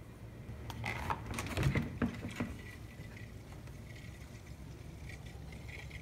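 Blizzard Box cooler's plastic latches and lid being undone and opened: a quick cluster of clicks and knocks with some rustling, lasting about two seconds, starting just under a second in.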